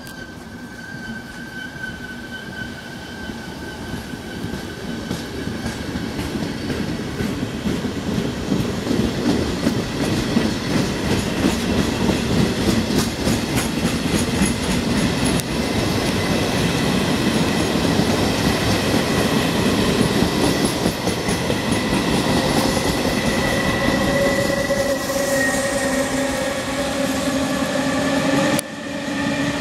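A passenger train of coaches hauled by an E.464 electric locomotive runs past on the rails, its rumble building over the first ten seconds, with rapid wheel clicks over the rail joints. Toward the end a steady whine joins in with several tones that rise slightly in pitch, from the locomotive passing close by.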